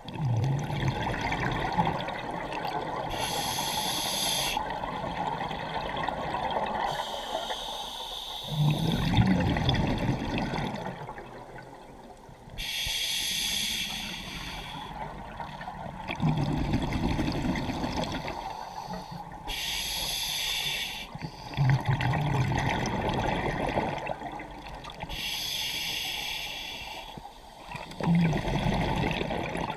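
Scuba diver breathing through a regulator underwater: a hissing inhale through the demand valve, then a low bubbling exhale, repeating in slow cycles every several seconds.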